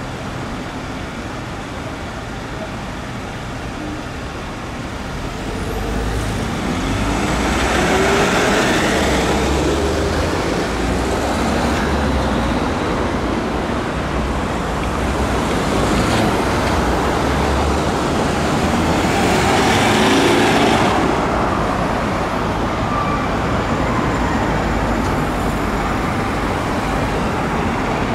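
Road traffic: engines and tyre noise of vehicles in slow city traffic. The sound swells twice, about eight seconds in and again about twenty seconds in, as vehicles pass close by.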